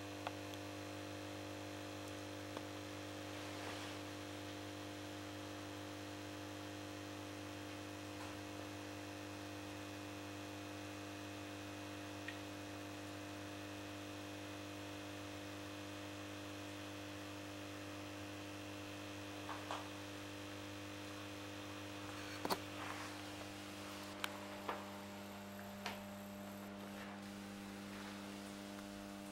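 Steady low electrical hum from the old 125 W choke ballast powering a Tesla RVL 125W mercury-vapour lamp. A few sharp clicks and knocks come in the second half.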